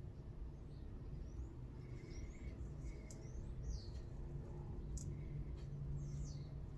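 Faint bird chirps: a few short falling calls, over a low steady hum.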